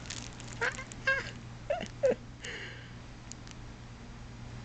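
A woman's short, high-pitched excited squeals, about four of them in quick succession in the first two seconds or so, without words.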